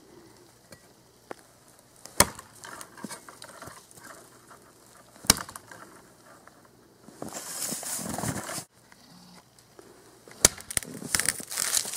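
Three sharp chops of a Cold Steel Special Forces shovel's sharpened steel blade into the trunk of a dead sapling, a few seconds apart, with rustling between them.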